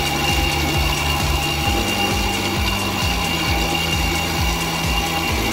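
Commercial bowl cutter running, its spinning blades chopping carrots in the rotating metal bowl: a steady motor whine over a continuous gritty chopping sound.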